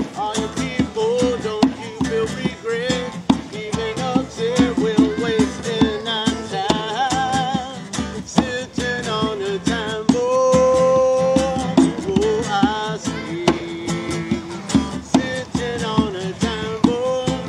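Live acoustic guitar and hand drum playing a song together, with a voice singing a wavering melody over them and holding one long note about ten seconds in.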